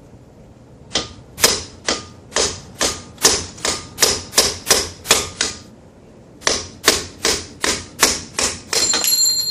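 Hammer blows on steel parts of a Dana 35 axle: about eighteen sharp metallic strikes at roughly two or three a second, in two runs with a short pause between them. A steady high-pitched tone comes in near the end.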